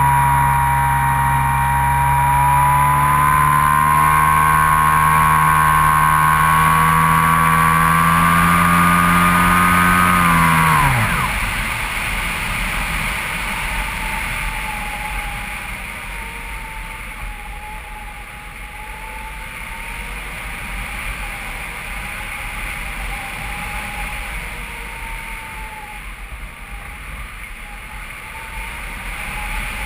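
Skywalker FPV model plane's electric motor and propeller whining steadily, recorded by the onboard GoPro. About eleven seconds in the throttle is cut: the whine drops in pitch and stops, leaving wind rushing past the airframe as the plane glides.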